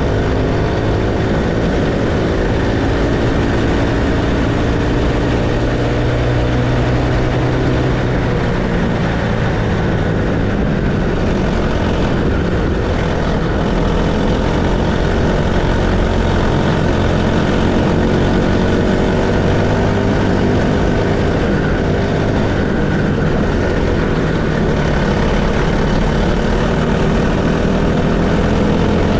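Racing kart's Honda GXH50 single-cylinder four-stroke 50cc engine running at race pace. Its pitch rises and falls gradually as the kart speeds up and slows through the corners.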